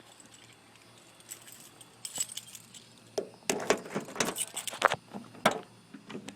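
Irregular clinking and rattling, a jumble of sharp clicks and clatters starting about two seconds in and stopping near the end.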